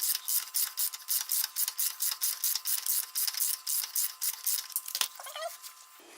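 Ratchet wrench clicking quickly and evenly, about six clicks a second, as an engine mounting bolt is backed out of a motorcycle frame. The clicking stops about five seconds in.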